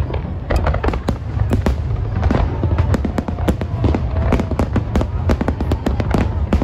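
Aerial fireworks display: a dense, rapid barrage of shell bursts and crackling bangs, many per second, over a continuous low rumble.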